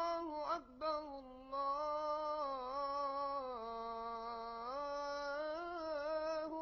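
A single voice singing long, held wordless notes, close to humming. It breaks off briefly about a second in, then holds each note, sliding down lower in the middle and climbing back up near the end.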